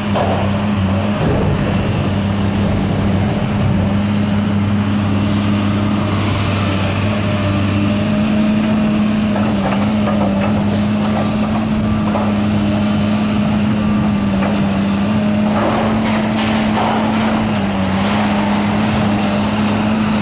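Demolition excavator's diesel engine running steadily under load, with intermittent crunching and scraping of sheet metal as its grapple tears at the stainless-steel diner body; the crunching comes in scattered bursts, thickest about three-quarters of the way through.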